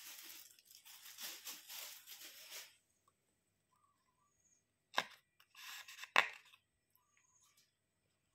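Plastic straw wrapper crinkling and tearing as a drinking straw is unwrapped, then a sharp click about five seconds in and a short rustle ending in a louder click a second later as the straw is pushed into a drink carton.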